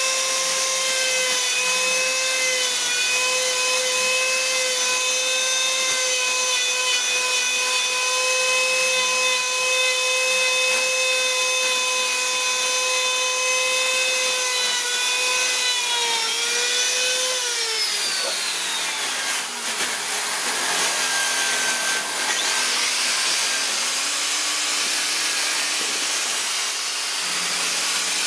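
Handheld rotary carving tool with a ball-shaped burr grinding into wood, running with a steady high whine. About sixteen seconds in its pitch sags and falls away as it winds down, leaving a rushing hiss with a lower hum.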